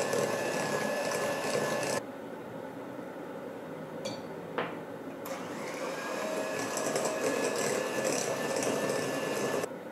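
Electric hand mixer with wire beaters running steadily, beating eggs one at a time into creamed butter and sugar. It stops after about two seconds. A brief sharp knock comes a little later, and the mixer starts up again about six seconds in, its whine rising briefly before it settles.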